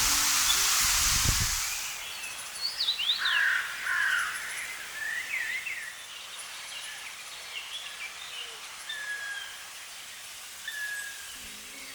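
A steady hiss with music under it for the first two seconds, then wild birds singing and calling: short chirps and quick rising and falling whistles, loudest just after the hiss stops and thinning out later. Music comes back in near the end.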